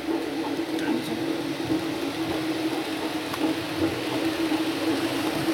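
Model railway trains running, with the electric motors giving a steady hum and a few small clicks.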